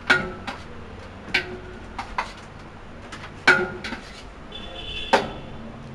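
Metal spoon clinking against a plate while eating: about half a dozen sharp, separate clinks over a few seconds, some ringing briefly.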